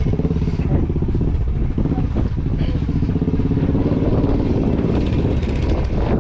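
Vehicle engine running steadily close by, with a rapid, even firing pulse.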